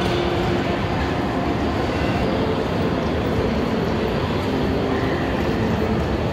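Steady background din of a large indoor amusement park hall: a continuous low rumble and hiss with no distinct events.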